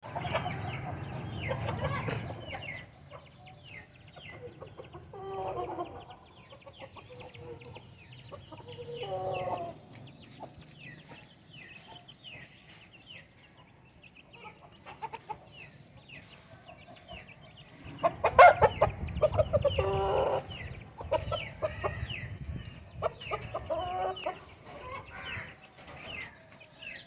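Kandhari Aseel chickens clucking, with short pitched calls at intervals. A sharp, loud knock comes about two-thirds of the way through.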